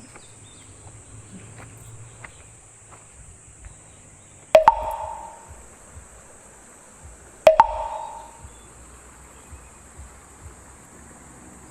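A steady high-pitched insect drone over faint outdoor background noise. Two sharp strikes about three seconds apart cut through it, each ringing briefly at two pitches before fading.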